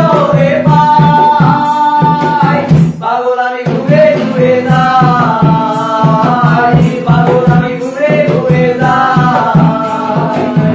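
Male voices singing a Bengali song to acoustic guitar, over a steady hand-percussion beat of about four pulses a second. The music briefly drops out about three seconds in.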